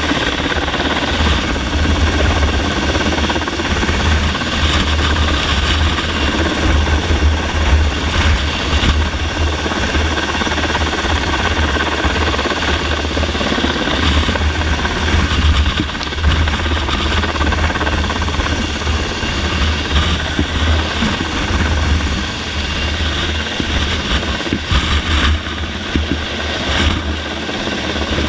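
Helicopter holding a hover close overhead for a SPIES rope extraction: loud, steady rotor and engine noise with a heavy low throb.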